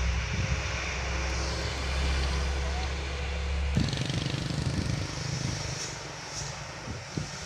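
A heavy vehicle's engine runs with a steady low rumble over road noise, then cuts off abruptly a little under four seconds in.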